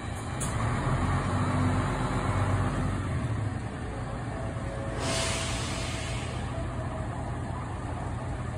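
City bus diesel engine pulling away, its hum growing louder over the first few seconds, with a short sharp hiss of air from the air brakes about five seconds in.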